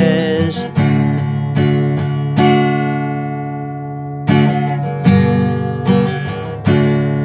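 Acoustic guitar strumming chords in a slow rhythm, with one chord left ringing and fading for nearly two seconds midway before the strumming picks up again. A held sung note with vibrato ends just under a second in.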